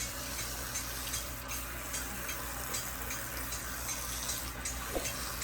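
Water spraying and spattering as dogs are showered: a steady hiss with irregular small splashes.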